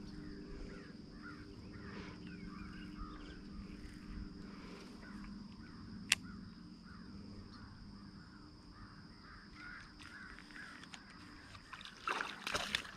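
Evening pond ambience: a steady high insect drone under many short animal calls repeating every half second or so, with a single sharp click about six seconds in and a loud noisy burst near the end.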